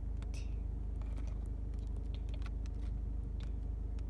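Scattered light clicks and taps from hands handling small objects, over a steady low hum.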